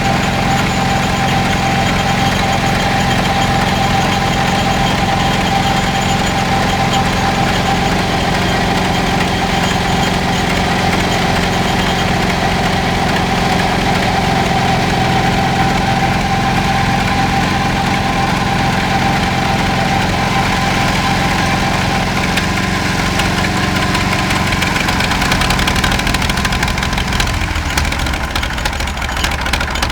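Engine of a 1950 Caterpillar D6 crawler tractor idling steadily; its note changes about 23 seconds in and again near the end.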